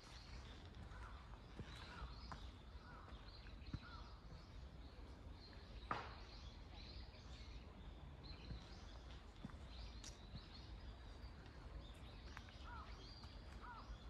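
Quiet forest ambience with faint bird chirps, a few short calls near the start and again near the end, over a steady low rumble. One sharp crack about six seconds in.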